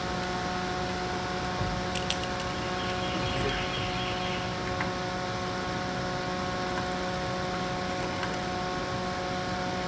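Steady hum of a small desk fan, holding several even tones, with a few faint clicks about two seconds in as the screen mesh is worked into the frame's groove.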